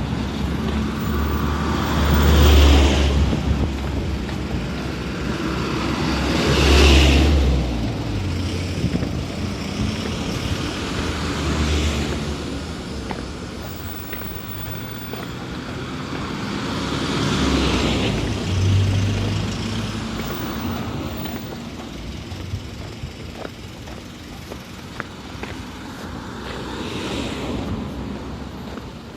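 Road traffic: cars passing one after another, about five rising and fading swells of tyre and engine noise over a steady traffic hum.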